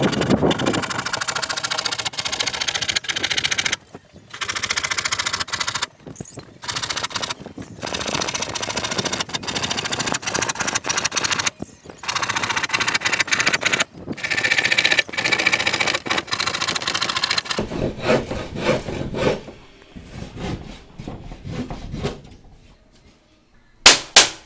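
Handsaw cutting through a plywood sheet: a steady, rapid rasp of back-and-forth strokes, stopping briefly a few times and dying away after about 17 seconds. A couple of sharp knocks come near the end.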